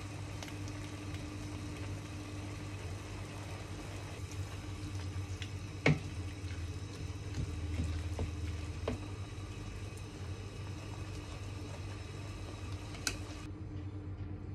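Minced meat and vegetable filling with tomato paste sizzling in a stainless steel frying pan as a wooden spoon stirs and scrapes it. A sharp knock of the spoon against the pan comes about six seconds in and a lighter one near the end, over a steady low hum.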